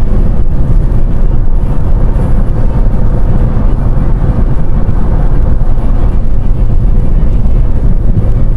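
Volkswagen Transporter camper van driving: steady, loud low rumble of road and engine noise, with a faint steady hum above it.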